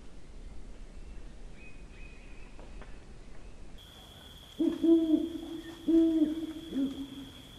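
Great grey owl hooting: three low, even hoots about a second apart in the second half, the last one shorter, after a quiet stretch.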